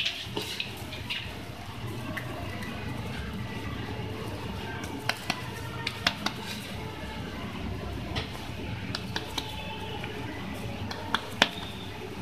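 Hands squishing and kneading a soft fish and lentil kabab mixture in a plastic bowl and patting it into a patty, with scattered sharp taps and clicks against the bowl. A steady low hum runs underneath.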